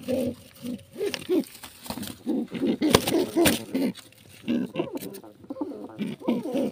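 Domestic pigeon on its nest of eggs making low cooing calls in repeated short phrases, with two sharp knocks about three seconds in.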